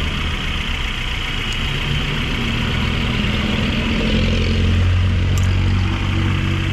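Suzuki APV four-cylinder engine idling steadily now that its faulty ignition coil has been replaced; the low hum grows a little stronger about four seconds in.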